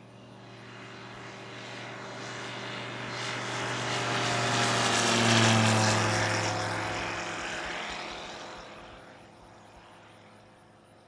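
Flying Legend Tucano Replica light-sport aircraft's propeller engine passing on take-off, growing louder to a peak about five or six seconds in. It then fades as the plane climbs away, the engine note dropping slightly in pitch after it goes by.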